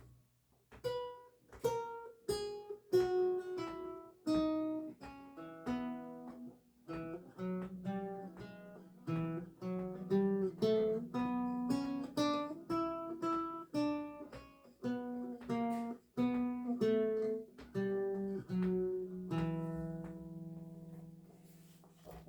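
Solo lute playing a slow melody of single plucked notes over bass notes. It ends on a chord left to ring and fade.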